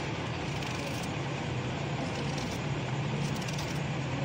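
A steady low hum with an even rushing noise, and a few faint scrapes of a knife peeling the skin off raw green mangoes.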